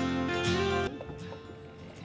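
Background music that drops away about a second in, leaving only a faint hum of room sound.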